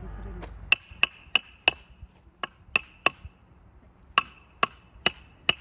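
Firewood being chopped with a blade: about a dozen sharp chops, each with a short metallic ring, about three a second, with a brief pause partway through.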